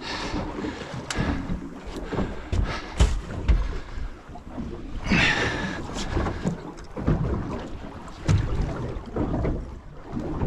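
Wind buffeting the microphone on a small boat in choppy water, with water washing against the hull, a louder surge about five seconds in, and scattered knocks and thumps.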